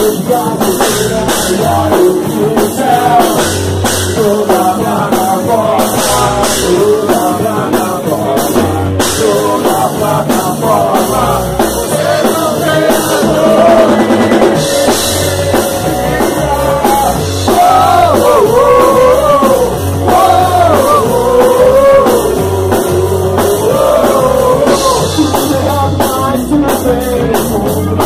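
Rock band playing a song: a steady drum-kit beat under a lead singer's melody.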